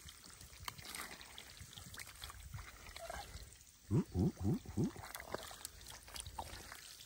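Shallow water trickling and dribbling faintly, with scattered small splashes and clicks. About four seconds in comes a quick run of four short gurgling sounds, each falling in pitch; these are the loudest sounds.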